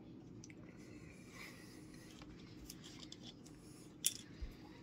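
Faint rustling of a paper napkin being handled over a low room hum, with one sharp click about four seconds in and a soft low thump just after.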